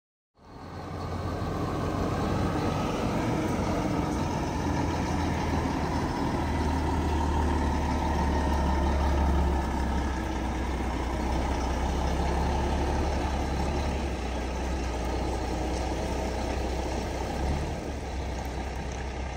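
Heavy diesel truck engine running steadily, a deep low engine note under broad mechanical and road noise. It starts abruptly just after the beginning.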